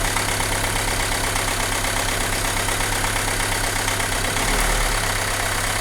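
Renault Mégane II engine idling steadily but with a shake, while its cylinders are cut out one at a time to find the one that makes it run rough. The shake is still there.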